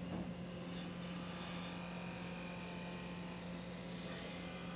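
A steady low electrical hum with a faint hiss.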